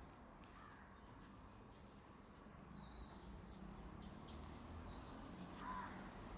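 Faint crow caws: a weak call early on and a clearer caw about a second before the end.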